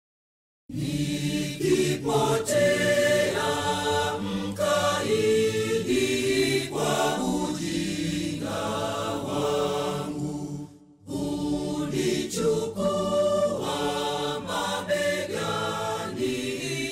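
Vocal music: a choir chanting in harmony. It comes in after a moment of silence and breaks off briefly about eleven seconds in.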